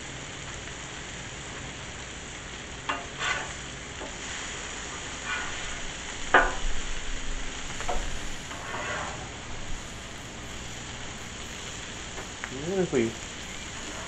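Shrimp and vegetables sizzling steadily on a Blackstone flat-top steel griddle, with a metal spatula scraping and flipping on the plate a few times. Near the end there is a brief wavering pitched sound.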